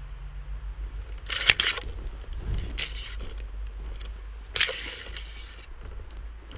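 Three short crunching, crackling noises over a low steady rumble, the first the loudest.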